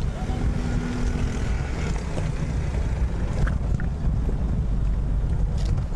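Wind buffeting the microphone over a steady low rumble of street noise, with a brief steady tone from about a quarter second to about a second and a half in.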